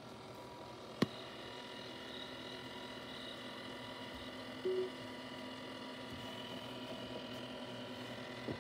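Disco light projector giving off a steady electrical whine made of several tones, with a sharp click about a second in and a short low tone near the middle. This is the annoying noise that a light working properly should not make.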